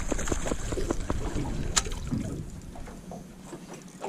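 Wind and water noise around a small aluminium fishing boat drifting on open water. The low rumble drops away about three seconds in, and a few sharp clicks come through, the clearest a little under two seconds in.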